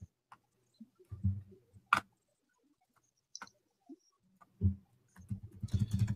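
Computer mouse and keyboard clicks: a handful of separate sharp clicks spread over several seconds.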